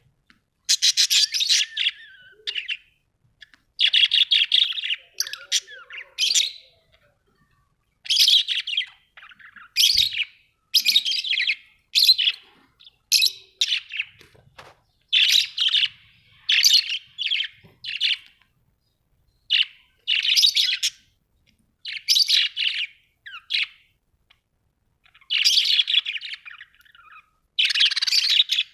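Budgerigars chirping and warbling in short bursts of about a second, with brief pauses between them.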